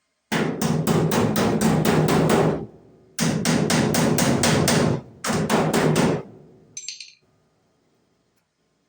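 MIG welder stitch-welding a thin sheet-metal patch panel with 0.024 solid wire: three bursts of crackling arc with an even pulse, about two, two and one seconds long, kept short so the thin metal does not overheat and warp.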